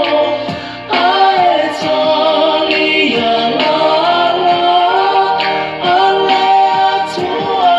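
A man singing a Samoan gospel song in Samoan, with a short break for breath just before a second in.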